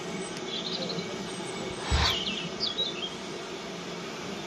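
Small birds chirping several times in short wiggly phrases over a steady low rumble, with one sharp knock about two seconds in.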